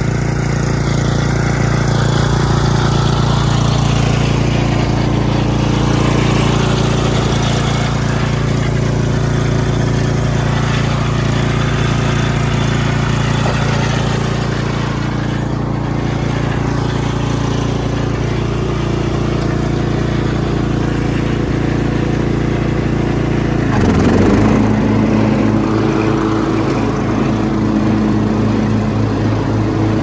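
Cub Cadet XT1 riding lawn mower's engine running steadily as the tractor drives over grass. About three-quarters of the way through there is a brief rush of noise and the engine note changes, holding the new note to the end.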